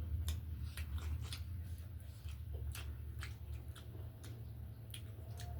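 Close-up mukbang eating sounds: chewing with irregular wet mouth clicks and smacks, about two or three a second, over a steady low hum.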